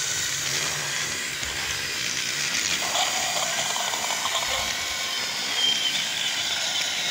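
Small electric motor and gears of a battery toy train running as it travels across carpet, a steady mechanical whirr.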